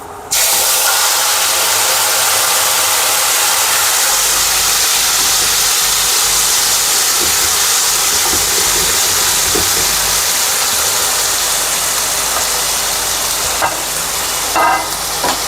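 Tomatoes dropped into a pan of hot oil, sizzling loudly. The sizzle starts suddenly and holds steady, easing a little near the end, with a few light knocks of a utensil on the pan.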